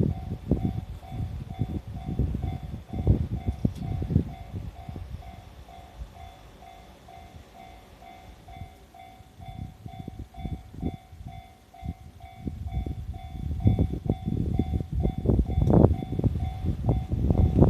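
Japanese railway level-crossing warning bell ringing in a steady, evenly repeating pattern, over uneven low rumbling from a passing E531 series train that swells at the start and again in the last few seconds.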